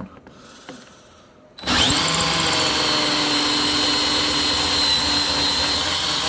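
Cordless drill starting about a second and a half in and running steadily under load with a constant whine, drilling out a rivet that holds a strap to an inline skate's plastic cuff.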